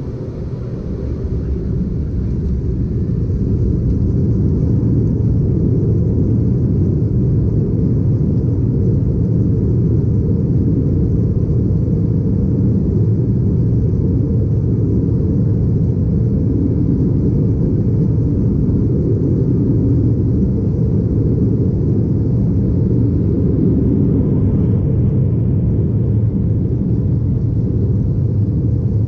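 Embraer E190's GE CF34-10E turbofan engines at takeoff thrust during the takeoff roll and liftoff, heard inside the cabin. A deep, steady rumble swells over the first few seconds as the engines spool up, then holds loud and level.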